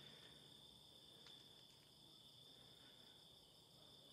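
Near silence with a faint, steady high chirring of night insects.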